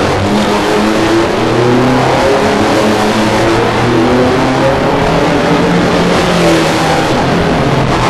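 Touring car engines running hard at racing speed, with several engine notes shifting up and down in pitch.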